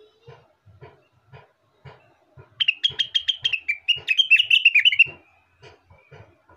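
Blue-winged leafbird (cucak wilis / rengganis) singing: a loud, rapid run of high chirping notes starting about two and a half seconds in and lasting about two and a half seconds, then a faint thin note.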